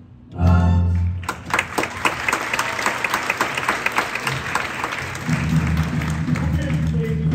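Stage-musical pit band holds a final chord for about a second as the song ends, then an audience applauds. About five seconds in, the band starts playing again under the applause.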